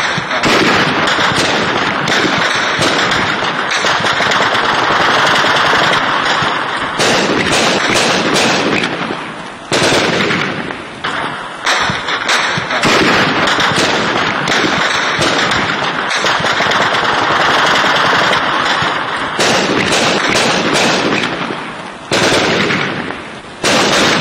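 Rifle fired into the air in rapid automatic bursts: long strings of shots lasting several seconds each, broken by short pauses.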